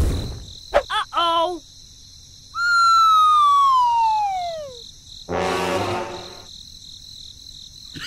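Cartoon-style sound effects: a few short warbling chirps about a second in, then a long whistle-like tone sliding steadily down in pitch for about two seconds, then a brief buzzy blast near the end, as the smoke clears off a freshly blasted crater.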